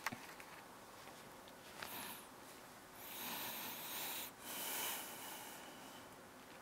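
A man's soft breathing close to the microphone: two hissing breaths, about three and four and a half seconds in, after a small click at the start.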